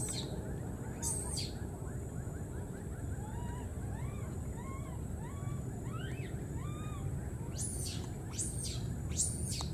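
Small animal calls over a steady low rumble: a quick run of about a dozen short chirps, each rising then falling in pitch, in the middle, and five very high, thin squeaks, two near the start and three near the end.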